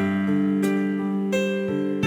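Slow piano music on an electric piano: held chords with a new note or chord struck about every half second.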